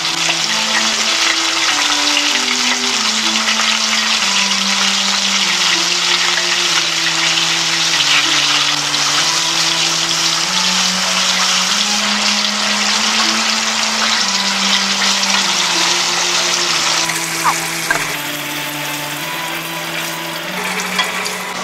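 Gyoza deep-frying in hot oil: a steady, dense sizzle, under a simple background melody of slow held notes. Near the end the sizzle thins and a few short clicks sound as the gyoza are turned and lifted out of the oil.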